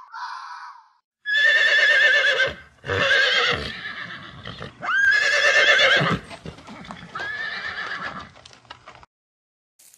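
Horse whinnying: three loud, quavering neighs, then a fainter one near the end.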